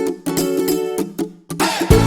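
Background music: a bright plucked-string tune on ukulele or guitar, with a brief break about one and a half seconds in before a bass line comes in near the end.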